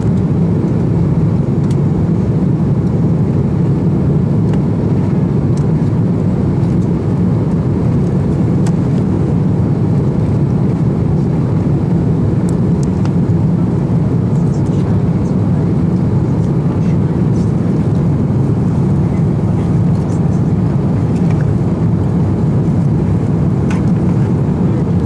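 Steady cabin noise inside an Airbus A330-200 on approach with flaps extended: a loud, even, deep rumble of the jet engines and the air rushing past the fuselage.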